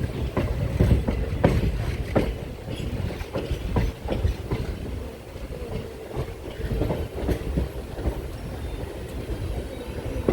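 Passenger train running along the track, its wheels clattering over rail joints in irregular clicks and knocks above a steady low rumble. The clatter is louder in the first few seconds.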